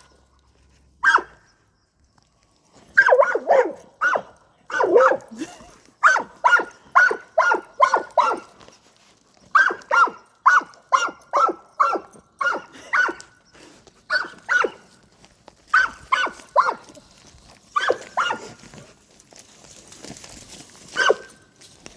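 A dog barking in runs of short, sharp barks, about two a second, with brief pauses between the runs.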